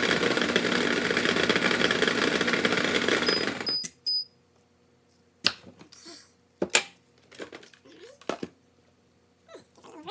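Breville Sous Chef food processor running with two beets in its peeler. Short timer beeps sound just before the motor stops, about four seconds in, and a few knocks and clicks of the machine's parts being handled follow.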